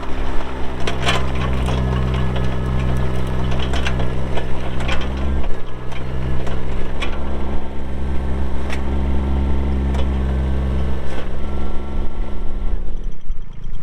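Bobcat E20 mini excavator's Kubota diesel running steadily, with scattered metallic clanks and knocks from the machine working. About thirteen seconds in, the engine winds down in pitch and stops, shut off.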